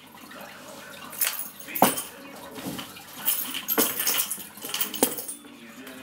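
A bunch of keys clinking and jangling as a small dog picks them up in its mouth and lets them fall, in a handful of sharp clinks spread over several seconds.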